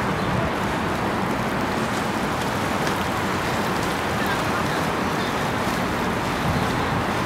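Outboard-powered motorboats cruising past at low speed: a steady engine drone mixed with water washing off the hulls and wakes.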